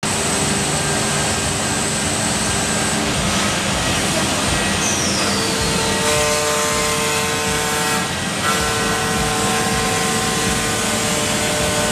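CNC wood router cutting a wood panel: steady machining noise from the spindle. Several steady tones come in about halfway through, just after a short falling whistle.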